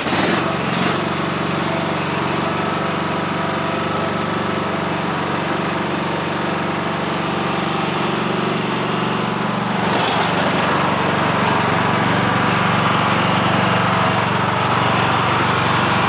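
Snapper riding lawn mower's engine running steadily, getting louder about ten seconds in.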